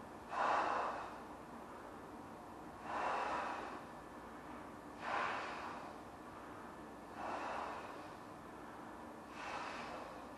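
A person's breathing while blowing up a large latex balloon by mouth: five breathy rushes of air, one about every two seconds.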